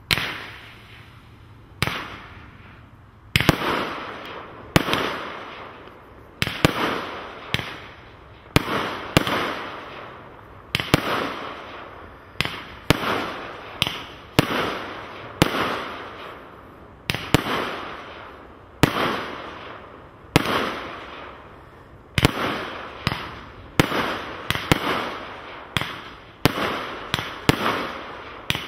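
Hallmark 'Chaos' firework cake firing shot after shot, a sharp bang about every second, each one trailing off in echo.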